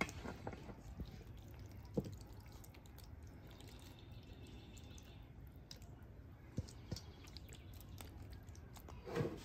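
Creamy pasta and chicken sliding out of a stainless steel bowl into a cast iron skillet as a silicone spatula scrapes the bowl: faint wet squishing, with a few light knocks of bowl and spatula against the pan.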